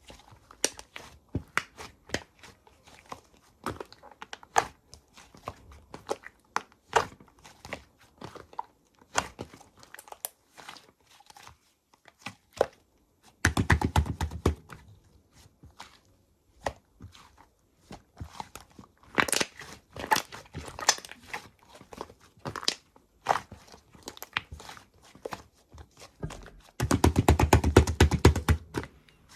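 Slime being pressed, stretched and squished by hand, giving a string of sticky clicks and crackling pops, with two louder bursts of rapid crackling, one about halfway and one near the end.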